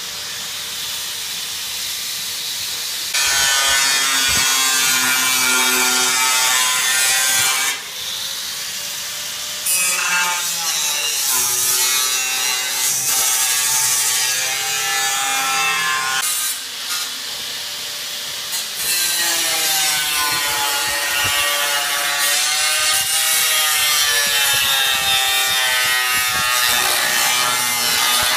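Angle grinder with a cut-off wheel cutting into a steel tank, a loud whine whose pitch wavers and sags as the wheel bites into the metal. It eases off twice into quieter stretches between long cuts.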